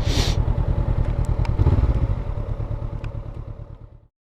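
Honda CBR500R parallel-twin motorcycle engine running with a low, even pulse, with a brief hiss at the start; the sound fades out over the last two seconds.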